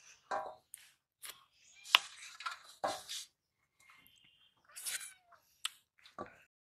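Eating by hand from a stainless steel plate: fingers scraping and wiping the plate clean, with scattered smacking, sucking and chewing sounds in short, irregular bursts and a couple of brief squeaks.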